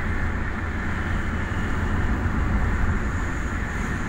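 Steady cabin noise of a moving car: a low engine and road rumble with tyre hiss, even throughout.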